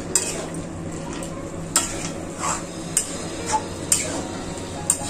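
Spatula stirring chicken curry in a metal kadai, scraping and knocking against the pan every second or so, over a steady sizzle of the simmering masala.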